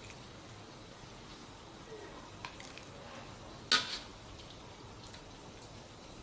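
Stainless steel ladle knocking and scraping against a wok as clear soup is scooped out into a bowl: a few light clinks, then one sharp clank a little past halfway, over a faint steady hiss.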